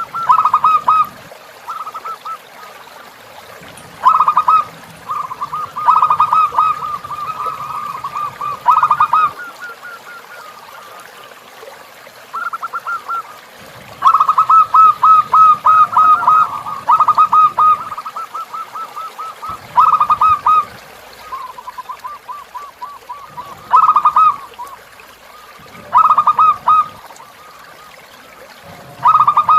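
Zebra dove (perkutut) cooing: bursts of rapid rolling notes around one pitch, repeated every two to four seconds, some running on for a few seconds, over the faint steady trickle of a flowing river.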